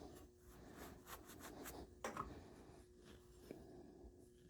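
Faint rubbing strokes of a rag wiping excess flux off a freshly soldered copper pipe joint, with one sharp click about two seconds in.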